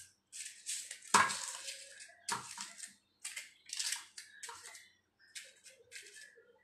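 Paper cupcake liners crinkling and rustling in a string of short bursts as they are pushed into the cups of a muffin tray, with a couple of knocks of the tray about one and two seconds in.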